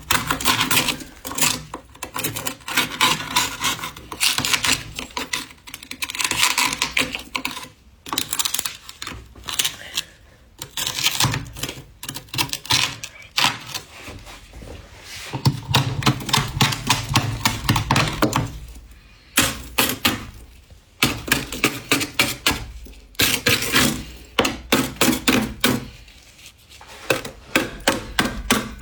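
Soft freezer frost crunching in quick bursts of dense crackly ticks, a few seconds at a time with short pauses between.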